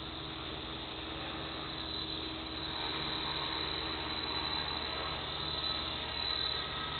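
Align T-Rex 450 Sport electric RC helicopter hovering low: a steady whine from its electric motor and the buzz of the spinning rotor blades, getting a little louder about two and a half seconds in.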